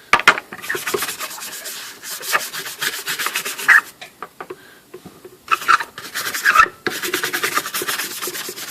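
A brush scrubbing hard on the grimy front cover of a typewriter's casing: rapid back-and-forth strokes in three stretches, with short pauses about four and about six and a half seconds in.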